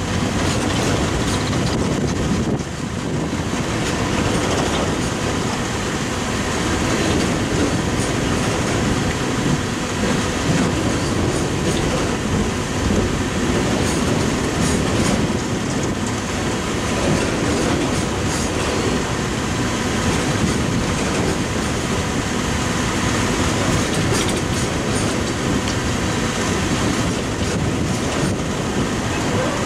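Coal train cars rolling past at close range: a steady rumble of steel wheels on rail with a clickety-clack over the rail joints.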